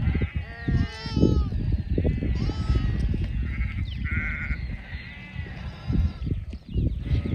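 A flock of sheep bleating, several wavering calls overlapping one after another, over a steady low rumbling noise.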